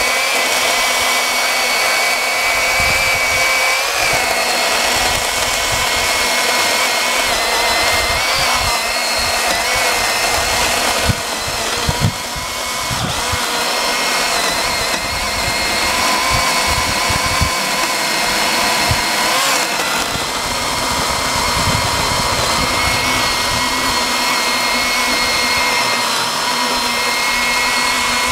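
Battery-powered electric chainsaw running continuously as it cuts through an ash log, its motor whine wavering a little in pitch under load, with a brief drop about twelve seconds in.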